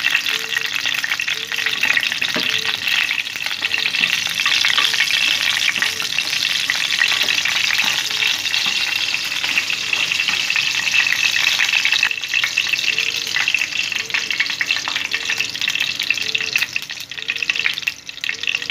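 Whole dried red chillies sizzling and crackling steadily in hot oil in a nonstick frying pan: the first stage of a tempering (baghar) for raita.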